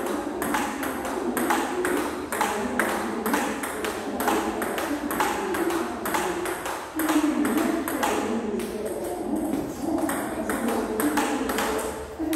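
Table-tennis rally: the ball clicking off the bats and the table in a quick, even rhythm, about three clicks a second, in a practice session with a pimpled-rubber bat.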